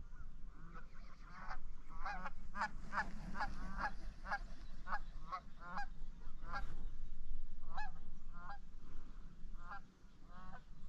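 Goose honking: a fast run of honks, about three a second, for several seconds, then scattered single honks.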